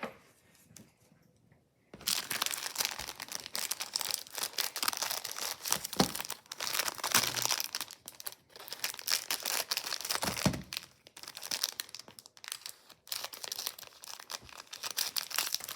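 Plastic wrapper of a Topps trading-card rack pack crinkling as it is handled and opened: a dense crackle that starts about two seconds in and goes on with a few short pauses.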